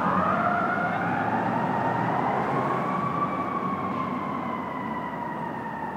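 Fire truck siren sounding as the truck moves away, its pitch rising over about three seconds and then slowly falling, growing gradually fainter.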